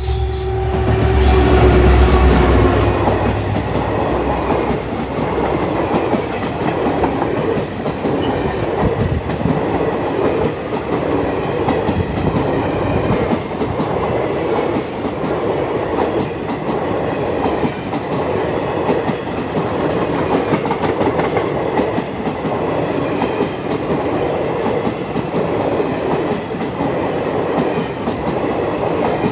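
WDP4 diesel locomotive passing close with a loud low rumble in the first few seconds, then a long rake of passenger coaches rolling past at speed, the wheels clattering steadily over the rail joints.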